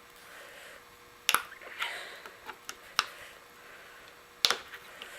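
A screwdriver prying at the middle piece of a handlebar clamp, making sharp metallic clicks and taps with a short scrape. Three loud clicks come about a second and a half apart, with fainter ticks between them.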